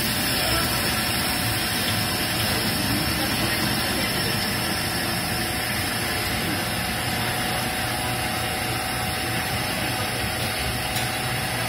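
Manitowoc commercial ice machine running: a steady mechanical hum and rush with a few faint steady tones.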